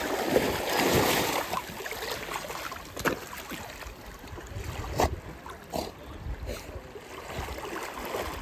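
Water splashing as a golden retriever wades and swims through shallow water, with low wind rumble on the microphone. Two sharp ticks stand out about three and five seconds in.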